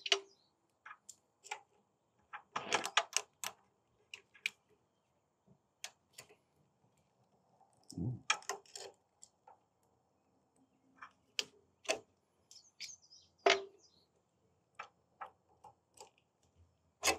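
Irregular light metal clicks and taps of hand tools, pliers and a pick, against a brass triplex pressure washer pump manifold and its small valve parts as the valve seats and O-rings are worked out.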